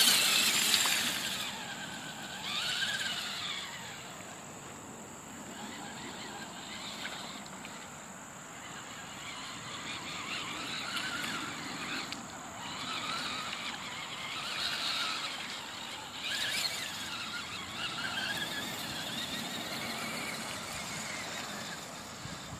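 HPI Crawler King RC crawler's electric motor and geartrain whining as it churns through mud, the pitch rising and falling over and over with the throttle. Loudest in the first second or so while it passes close, then fainter as it drives away.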